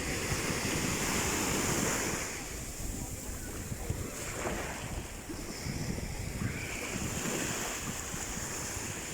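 Sea waves washing onto the shore, with wind buffeting the microphone. The surge is loudest in the first two seconds, then eases to a steadier wash.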